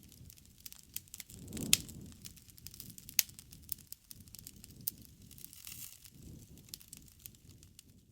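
Wood campfire crackling, with many small sharp pops over the low rumble of the flames and two louder pops, one before two seconds in and one about three seconds in.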